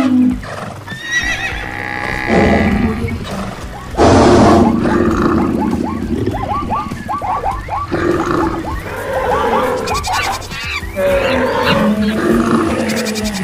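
Layered animal calls, horses neighing among them, with a quick run of many short calls from about four to seven seconds in.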